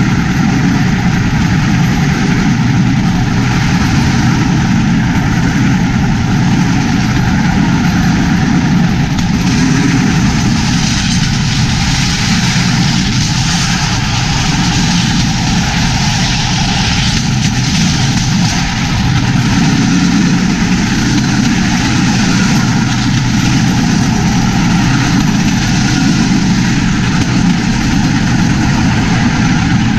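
A bamboo train (norry) moving along the rails, its small engine running steadily under a constant rumble and noise from the ride, with no break or change.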